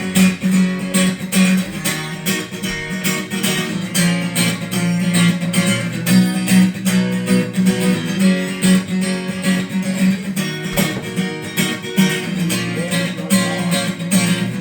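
Instrumental music: an acoustic guitar strummed in a steady rhythm, with no singing.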